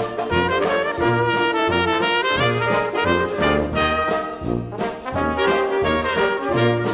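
Background music led by brass instruments (trumpets and trombones) over a regular bass line, in a jazzy big-band style.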